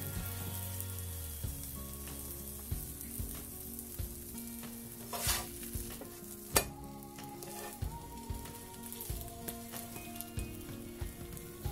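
Egg-in-bread toast sizzling in a nonstick frying pan. About five seconds in, a slotted spatula scrapes under the slice and flips it, with a sharp knock on the pan just after six seconds, then the sizzle goes on.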